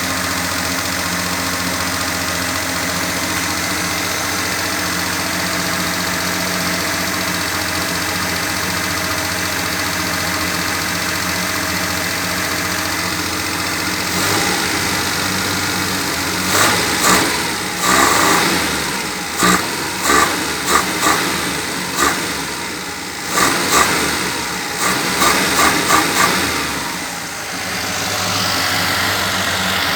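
Car engine idling steadily, then revved in a series of short, quick throttle blips for about ten seconds before dropping back to idle.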